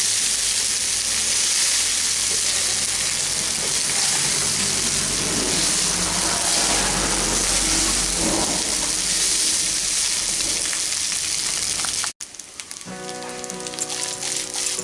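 Fried rice with potatoes sizzling in a hot nonstick frying pan while being gently stirred with a wooden spatula. About twelve seconds in, the sizzling cuts off and music starts.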